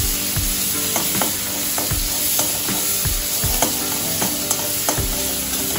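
Ginger-garlic paste and bay leaves sizzling in hot oil in a cooking pan. A spatula stirs and knocks against the pan repeatedly, about one or two times a second.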